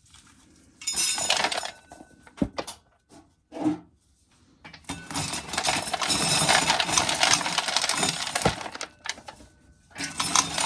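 Dried corn being shelled, kernels and cobs rattling and clattering into a container. There are short bursts, a sharp knock, then a long dense clatter of about four seconds from about five seconds in.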